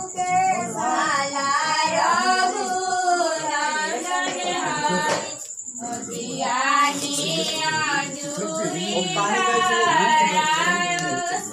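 Several women singing a song together, with a short break about five and a half seconds in.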